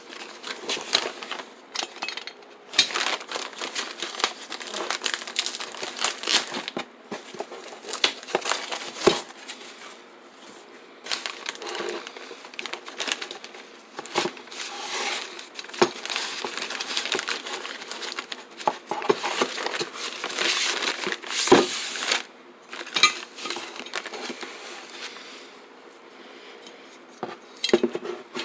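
Plastic bags and foam packing crinkling and rustling as parts are unwrapped, with irregular sharp clicks and knocks of small hard parts being handled and set down.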